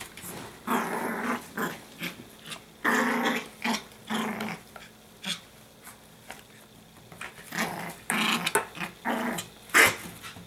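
Pomeranian puppy's playful growls in repeated short, rasping bursts while tugging on a toy, with scattered sharp clicks and one loud click near the end.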